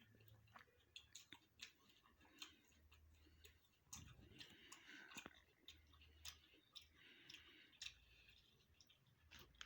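Faint close-up eating sounds: a person chewing food, with many small irregular wet mouth clicks.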